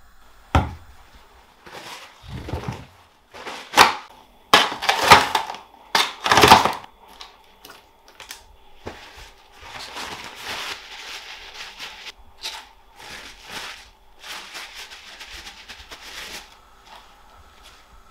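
Paper towel crinkling and rustling against raw chicken drumsticks as they are patted dry by hand. A sharp click comes about half a second in, then a run of loud crinkling bursts from about two to seven seconds in, then several seconds of softer rustling.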